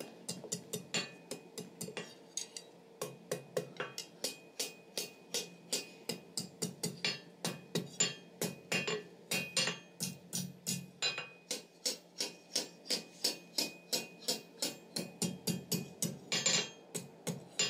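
Hand hammer striking a hot steel bar on an anvil in a steady run of blows, about three to four a second, curling the bar's tapered end over the anvil edge into a small scroll.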